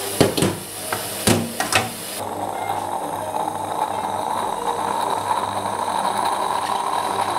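Food sizzling in a frying pan with about five sharp knocks of utensils against the pan. After about two seconds it changes abruptly to a steady hiss.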